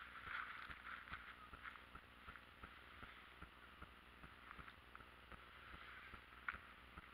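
Near silence: faint outdoor ambience with a soft hiss and light, irregular ticks, a little busier at the start.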